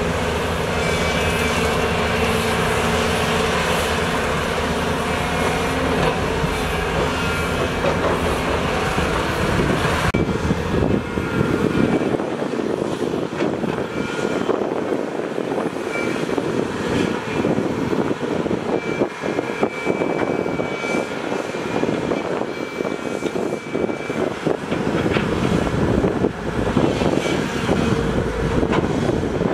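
Heavy diesel excavator working, its engine running with a steady drone for about ten seconds, then turning rougher and noisier with scattered knocks and clatter.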